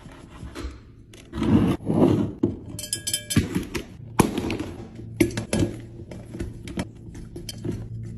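Food containers and bottles being set down and shifted about while a fridge is restocked: an irregular string of knocks, clinks and scrapes, loudest a little over a second in.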